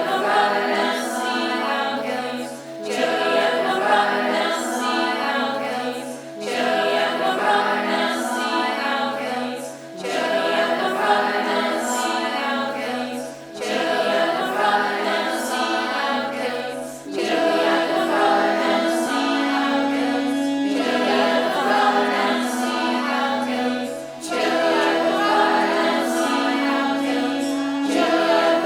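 Music: a choir of voices singing in layered phrases that swell and fall back about every three and a half seconds.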